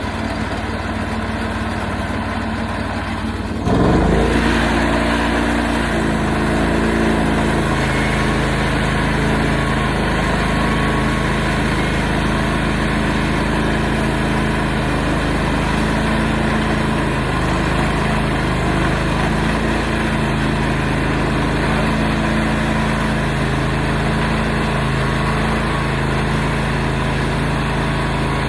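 Portable sawmill's engine running at low speed, then throttled up suddenly about four seconds in and running on steadily at high speed, its pitch wavering slightly.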